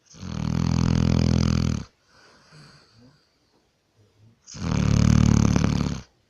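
Dog snoring loudly: two long snores of under two seconds each, about four seconds apart, with a faint breath between them.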